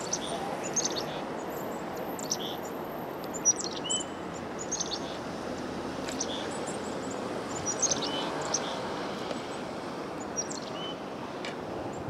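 Small songbirds chirping, with many short high notes scattered throughout, over a steady background hiss of outdoor noise.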